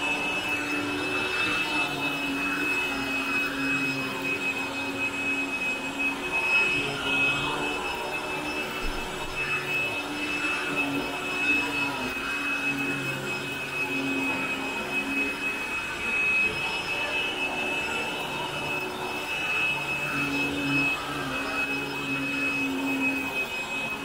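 Upright vacuum cleaner running over carpet: a steady high whine over a lower motor hum that shifts a little as it is pushed back and forth.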